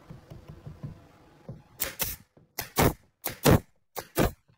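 Pneumatic nail gun firing nails into a wooden chair joint about four times in quick succession, each shot heard as a sharp double crack, starting a little under two seconds in after some faint knocking.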